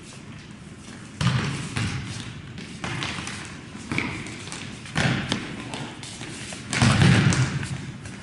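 Indoor soccer ball being kicked and thudding off the gym floor and walls: about five heavy thuds a second or two apart, each ringing on in the hall's echo, the loudest near the end.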